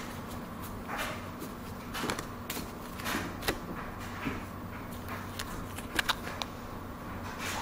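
Pokémon trading card booster packs and cards being handled, giving brief irregular rustles and clicks with a couple of sharper clicks about six seconds in. A steady low hum runs underneath.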